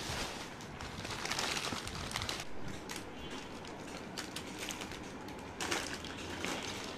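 Plastic snack packets and foil wrappers crinkling and rustling as they are handled, in irregular crackles.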